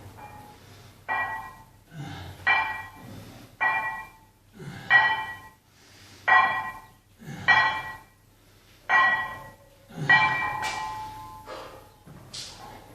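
Metal gym weights clinking with a short ringing tone on each repetition, about nine times at an even pace of roughly one clink every 1.2 to 1.4 seconds.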